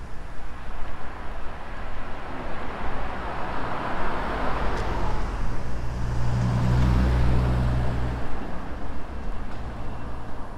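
Street traffic: a vehicle passes, loudest about four seconds in, followed by a low steady engine hum for about three seconds that then cuts out.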